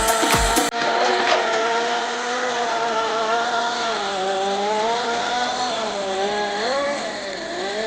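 Small two-stroke nitro glow engine (Kyosho GX-15) of an RC snowcat running at high revs, its pitch rising and falling as the throttle is worked. Under a second in, a piece of music with a steady beat cuts off abruptly and the engine takes over.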